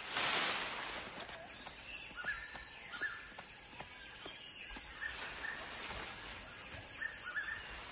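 Outdoor forest ambience: a short rush of noise at the start, then faint, short bird chirps, a few together about two to three seconds in and more near the end.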